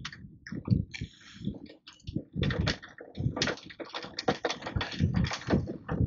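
Home-made right-angle 'side bow' roller chain drive on a wind turbine running with no load: the chain, bent around a plywood wheel, clicks and knocks irregularly, several times a second, as it meshes with a small sprocket.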